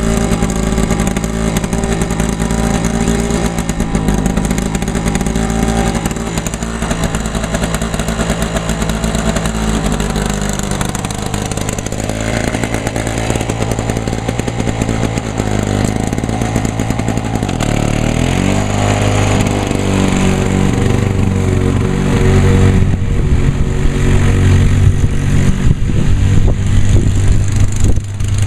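1991 Lawn-Boy M-series walk-behind mower's two-stroke engine running. Its pitch shifts about two-thirds of the way through, and it runs louder near the end.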